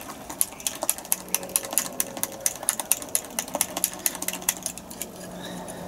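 Waffle batter being beaten by hand in a glass bowl, the utensil clicking rapidly and unevenly against the side of the bowl, several taps a second, as air is whisked into the mix to make it smooth and fluffy.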